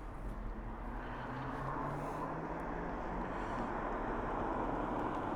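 A car's engine and tyres on the road, slowly growing louder as it draws near.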